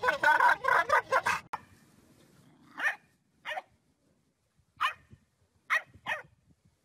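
A black dog making a weird, rapid, choppy vocal noise with its mouth open, stopping about a second and a half in. Five brief, separate sounds follow, spread out over the rest.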